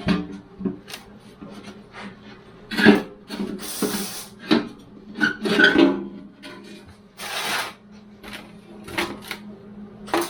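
Clatter of hand tools and metal parts being handled while the oil pan comes off: irregular knocks, clicks and scrapes, with two short hissing rushes about four and seven seconds in. A faint steady hum runs underneath.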